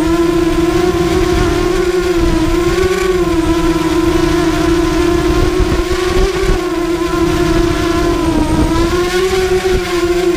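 ZMR250 mini racing quadcopter's brushless motors and propellers whining steadily as it flies, the pitch wavering up and down with the throttle and dipping briefly about eight and a half seconds in. A low rumble of wind on the microphone runs underneath.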